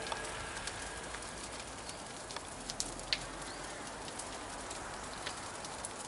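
Car fire crackling steadily around a burning front wheel arch and tyre, with scattered small pops and snaps.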